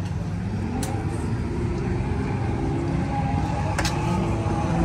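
Drift car engine revving up and down in repeated rising and falling sweeps, with a couple of sharp pops.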